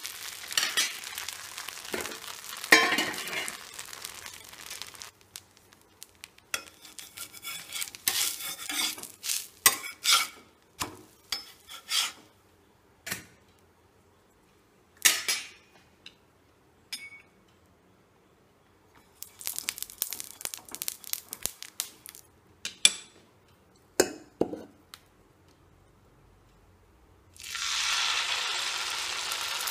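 Rice-batter pancake (appam) cooking on a hot cast-iron pan: sizzling at first, then a stretch of scattered metal clinks and knocks from pan and utensils with quiet gaps. About 27 seconds in, a steady sizzle starts suddenly as fresh batter is poured onto the hot pan.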